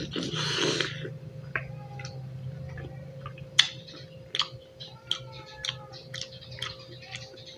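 A person chewing a mouthful of fresh pineapple close to the microphone, with irregular wet mouth clicks and smacks. A brief rush of noise comes at the very start.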